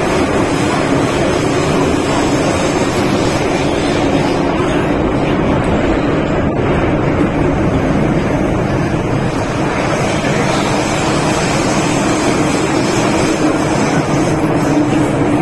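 Steady running noise inside a car of an MTR M-train electric train travelling through a tunnel: a continuous rumble of the train on the track with a steady hum.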